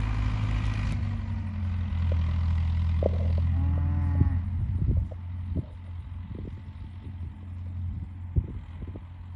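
An engine running with a steady low hum that drops in level about five seconds in, and a cow mooing once about four seconds in.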